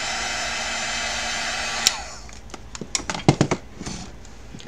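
Electric heat gun blowing steadily with a motor whine. It cuts off with a click about two seconds in, and a few light knocks follow.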